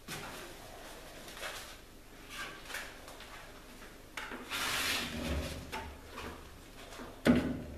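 An abrasive belt being fitted onto a stationary belt grinder: rubbing and scraping of the belt against the contact wheel and frame, loudest about halfway through, then a sharp knock near the end.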